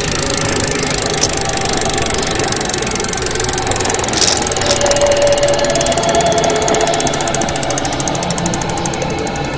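Loud, dense mechanical clatter and hiss of running machinery, with rapid fine ticking over the last few seconds.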